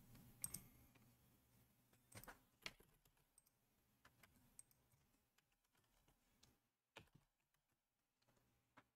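Near silence with a few faint, scattered computer keyboard clicks, names being typed into a randomizer.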